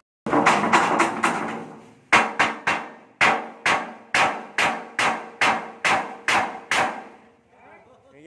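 Small hammer striking a large pane of tempered glass lying flat on the floor: a quick flurry of knocks, then about a dozen sharp, ringing knocks, roughly two a second. The pane does not shatter.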